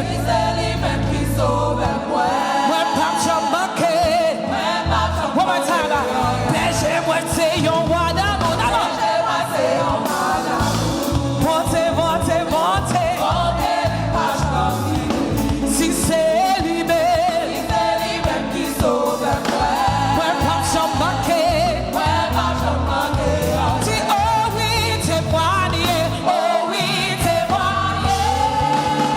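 Live gospel worship music: a praise team singing with a band.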